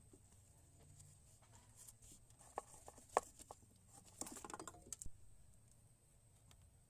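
Several sharp light clicks, then a short burst of clattering rattles, like small parts or hand tools being handled during work under the hood.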